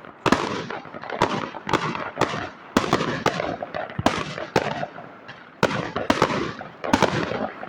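Fireworks going off: a rapid series of sharp bangs, one to two a second, each trailing off, with crackling in between.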